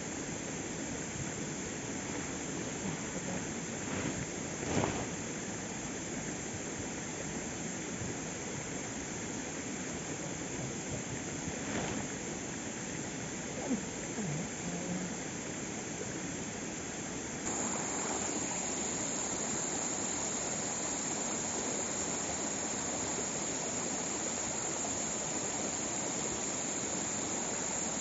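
Waterfall water rushing in a steady hiss, with a few brief knocks in the first half. The rush steps up louder and brighter a little past halfway.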